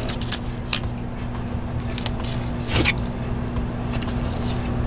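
Fillet knife slicing through a mahi mahi's flesh along the backbone, with a few short, faint scrapes of the blade, over a steady low hum.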